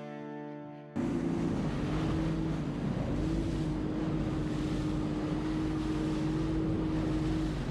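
A music track fades out, then about a second in a boat's motor is heard running steadily under way, its hum dipping briefly before holding even. Water rushes along the hull and wind hits the microphone throughout.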